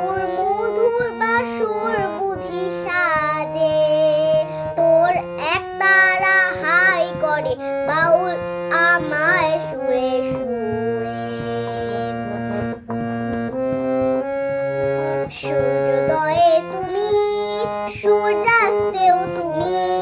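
A young girl singing a Bengali song solo, her voice gliding through ornamented phrases over an accompaniment of steady held keyboard notes.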